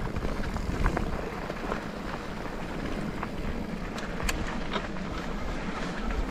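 Mountain bike ridden along a dirt trail: a steady rush of tyre and wind noise with scattered sharp clicks and rattles from the bike.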